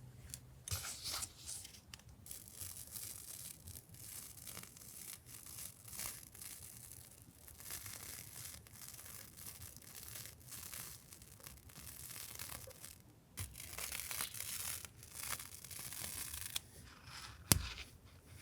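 Paper stationery and its packaging being handled: repeated rustling, rubbing and tearing sounds, with one sharp tap near the end.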